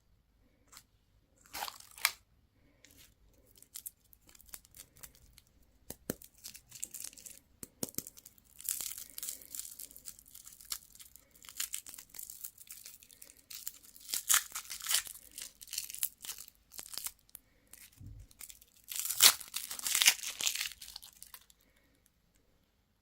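Crinkly candy wrapper being torn open and unwrapped by hand, in irregular crackling bursts that are loudest near the end.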